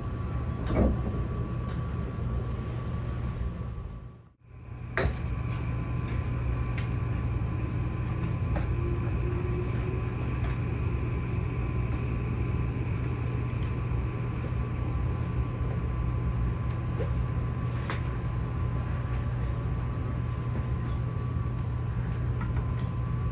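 Running noise inside an E257 series 0 limited express train car at speed: a steady low rumble with a constant whine above it. The sound fades out briefly about four seconds in and comes back with a click.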